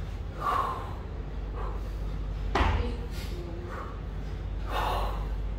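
Kettlebell lifter's set: short, sharp breaths, with a single sharp thud about two and a half seconds in, over a steady low hum.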